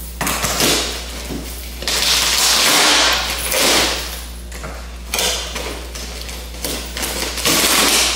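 Packing tape and cardboard ripping as a large taped shipping box is torn open by hand, in several long tearing bursts.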